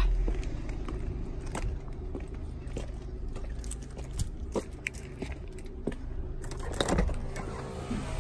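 Footsteps with small clicks and rustles of handling, over a low steady rumble.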